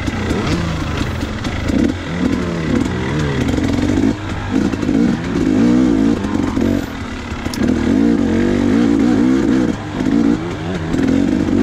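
KTM 250 XC single-cylinder two-stroke dirt bike engine running under riding load, its pitch rising and falling over and over as the throttle opens and closes. Brief drops in revs come near four and seven seconds in.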